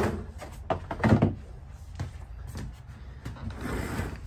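A heavy fold-out couch being manhandled and bumped against the RV's interior: a few solid knocks in the first second or so, then lighter knocks.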